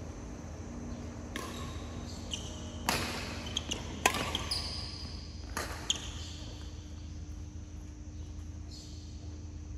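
Badminton rally: rackets striking the shuttlecock in a run of sharp hits about a second apart, the loudest a little past the middle, with short high squeaks of court shoes on the floor. A steady low hum runs underneath.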